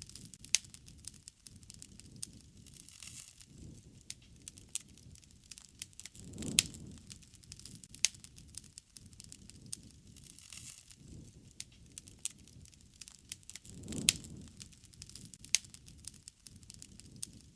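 Campfire crackling: wood burning with frequent sharp pops and snaps, and a soft low rush of flame that swells every several seconds.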